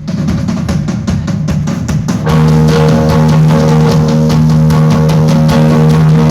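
Rock band playing live during a soundcheck. Drums play a fast beat alone, then about two seconds in the full band comes in loud with sustained guitar and bass notes over the drums.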